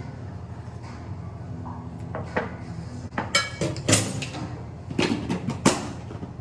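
Household clatter: a run of sharp clinks and knocks, like dishes or hard objects being handled and set down, over a steady low hum.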